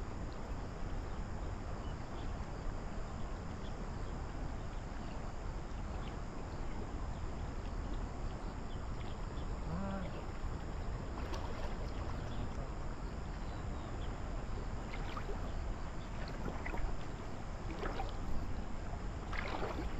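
Steady rushing noise of a small river's flowing water, with a few faint short sounds in the second half.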